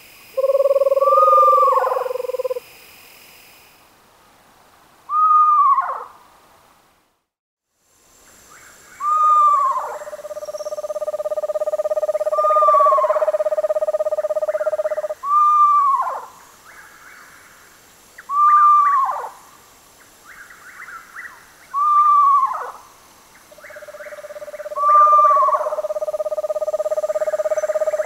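Screech owls (genus Megascops) calling: short notes that arch up and then drop steeply, repeated about every three seconds. At times a long, steady, low trill runs beneath them. The recording cuts to silence briefly about seven seconds in.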